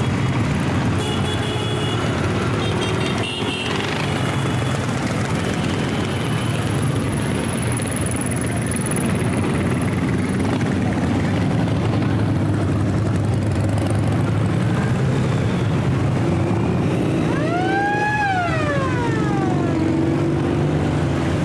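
Many motorcycles riding past one after another at low speed, their engines running in a dense, steady mix. Near the end, a pitched whine sweeps up and then back down.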